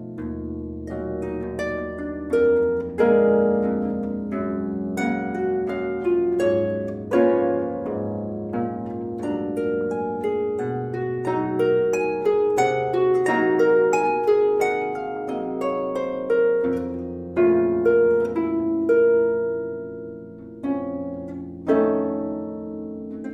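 Harp playing a flowing piece: plucked notes that start sharply and ring on, over low bass notes held for several seconds at a time.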